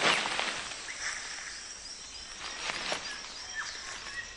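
Tropical rainforest ambience: a steady hiss of insects with a few short bird chirps. A rustle of leaves and stem right at the start as the rattan is grabbed, and a couple of faint clicks in the middle.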